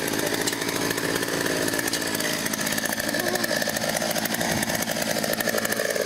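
Chainsaw running at high speed, cutting through a large tree limb; its pitch wavers under load and drops near the end.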